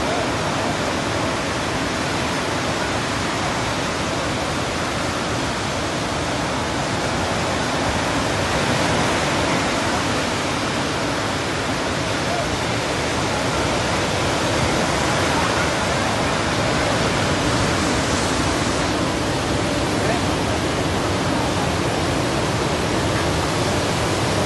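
Heavy sea surf breaking continuously on the shore, heard as a steady, unbroken rushing noise. The sea is running high under a low-pressure system.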